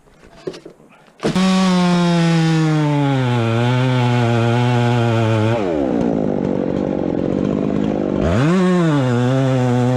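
Husqvarna chainsaw running hard, starting suddenly about a second in. About halfway through its pitch drops and the sound turns rough as the chain bogs down under load in the cut. Near the end it revs back up and runs on steadily.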